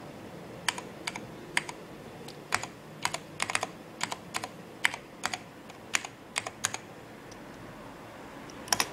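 Typing on an IBM PC Convertible's keyboard: irregular clicking keystrokes for about six seconds, then a pause and two quick keystrokes near the end.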